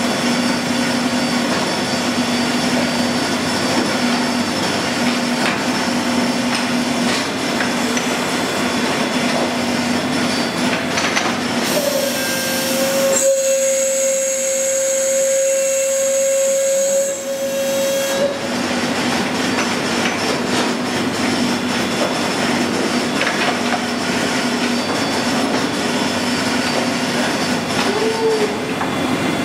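Union CBFT 105 CNC table-type boring and milling machine running under power, a steady mechanical hum. About twelve seconds in, a steady whine joins for about six seconds, then the hum carries on.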